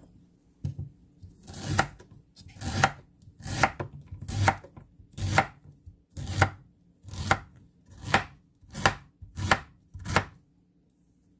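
Chef's knife slicing peeled ginger root on a wooden cutting board: about a dozen even strokes, a little over one a second, each ending in a knock on the board.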